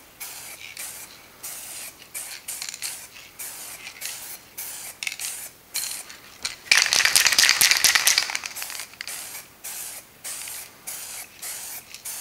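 Aerosol can of primer spraying over freshly welded car-body repairs: one long, loud hiss about seven seconds in, lasting about a second and a half, with shorter, fainter hissing bursts before and after. The light primer coat serves as a guide coat to show up defects in the welds.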